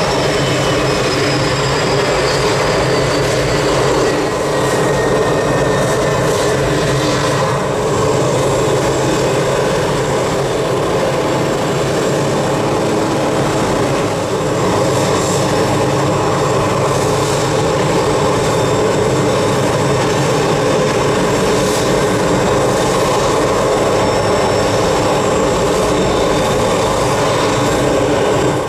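Steady mechanical hum and whine of a parked Boeing 747-400 and its ground equipment at the gate, with high whines sliding down in pitch over the first few seconds.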